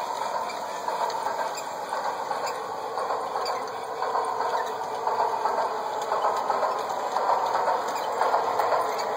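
G-scale model trains running: a steady, rattling mechanical whir of geared locomotive drives, full of fine clicks. It grows louder in the second half as a two-locomotive LGB train comes closer.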